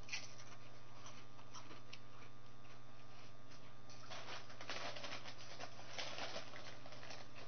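Faint crunching of a potato chip being chewed, then a foil chip bag crinkling as it is handled, busiest about four seconds in, over a steady low hum.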